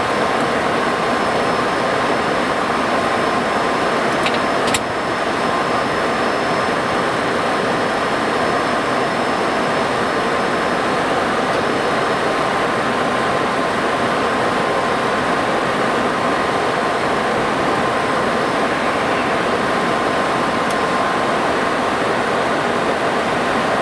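Steady cockpit noise of an MD-80 airliner in flight: an even rush of air and engine with a faint steady whine. A single click about five seconds in.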